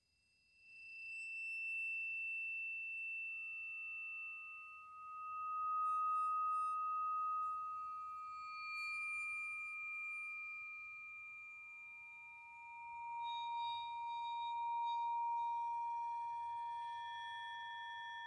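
Struck tuning forks held against the metal bars of a keyboard percussion instrument, each giving a pure, steady tone. New tones enter one after another at different pitches, starting about a second in, and overlap into a layered, sustained chord.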